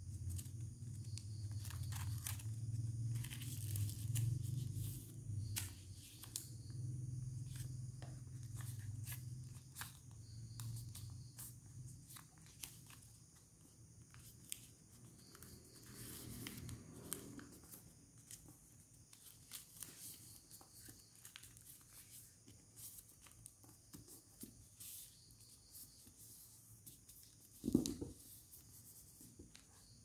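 Sheet of origami paper being folded and creased by hand on a wooden tabletop: scattered crinkles, rustles and sharp creasing clicks. A low hum runs under roughly the first twelve seconds, and a single thump sounds near the end.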